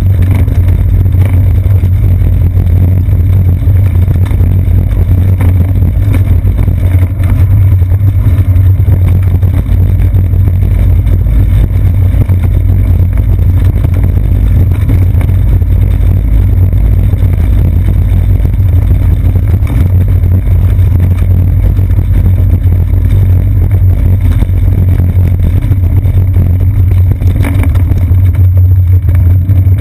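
Loud, steady low rumble of road vibration and wind picked up by a bicycle's seat-post-mounted GoPro Hero 2 as the bike rolls over brick-paved and asphalt streets.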